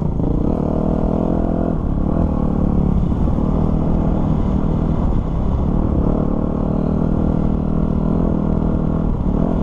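Dirt bike engine running hard under way, its pitch dropping and climbing again a few times as the rider shifts or rolls off the throttle, over a steady low rumble of wind and road noise.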